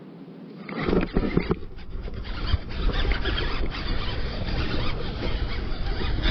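Baitcasting reel cranked hard close to the microphone, with hands and gear rubbing and knocking against it: a loud, dense rattling and rubbing that starts suddenly about a second in and keeps on.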